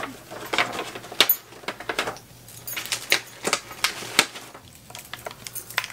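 Outer packaging of an eyeshadow palette being opened by hand: a run of irregular sharp clicks and crinkles.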